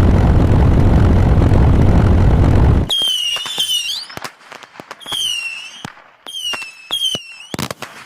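Fireworks sound effect: about three seconds of loud, continuous rumbling blast noise, then a few short wavering whistles and sharp pops that thin out.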